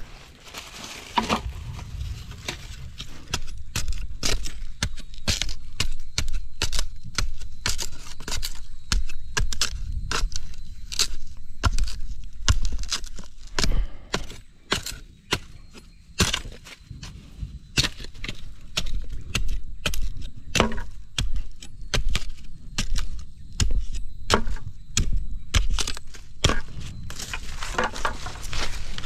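Dry wood being broken up to build a campfire: a long, irregular run of sharp cracks and knocks, several a second.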